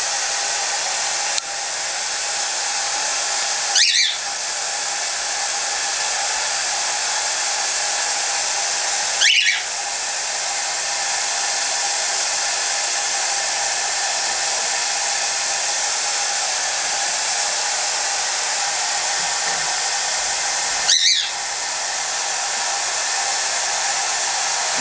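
Hair dryer blowing steadily, with a pet bird giving three short high-pitched calls over it.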